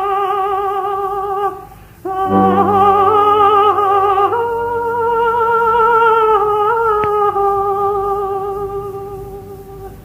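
Coloratura soprano singing a wordless 'ah' vocalise in long held notes with a wide vibrato. The first note breaks off after about a second and a half. The voice returns with a low sustained accompaniment beneath it, steps up in pitch, and fades toward the end.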